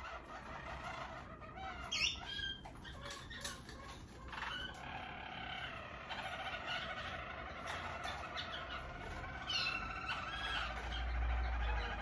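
Harzer Roller song canaries singing: continuous rolling trills, with a few higher gliding notes about two seconds in and again near ten seconds. A low rumble comes in near the end.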